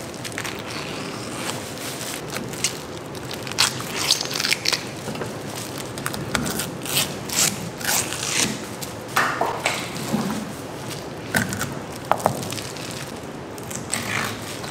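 Knife and gloved hands working an eel on a plastic cutting board, filleting it open: irregular short scrapes and clicks, thickest in the middle of the stretch, over a steady background noise.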